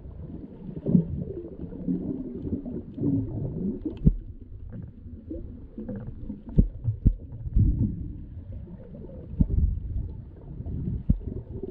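Muffled underwater sound picked up by a submerged camera: low rumbling water movement with several dull thumps.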